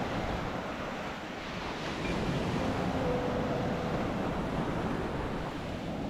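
Gentle sea waves washing onto a beach, a steady surf noise that swells a little midway, with wind on the microphone.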